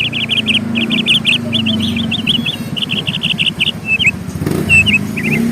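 Small birds chirping in quick runs of short, high notes, one run after another, over a low rumble.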